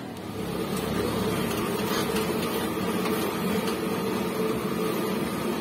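Steady mechanical hum with no knocking or clunking on top of it; the L300's front suspension, its worn lower ball joint just replaced, now runs quiet.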